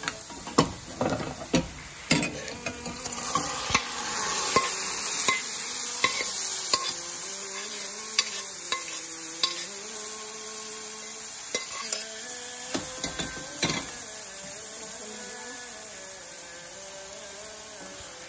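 Steel spoon knocking and scraping in a metal pan as a hot ghee-fried onion tempering is mixed into mashed drumstick leaves and moong dal. There is a brief sizzle a few seconds in, then steady stirring with occasional clinks.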